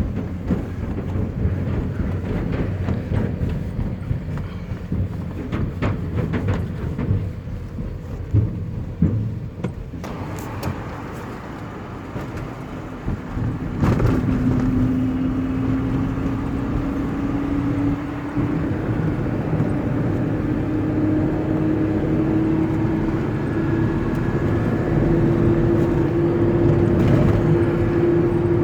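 Car driving, with a rough rumble of road and engine noise. About halfway through it gets louder and the engine note begins a slow, steady rise in pitch as the car gathers speed.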